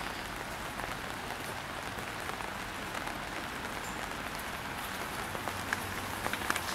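Steady rain falling on wet ground: an even hiss with scattered faint drop ticks.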